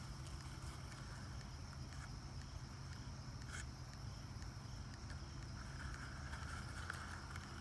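Breath blown steadily into a tinder bundle of shredded bark to bring an ember up to flame. The blowing is a soft hiss that gets stronger in the last two seconds, over a low steady rumble.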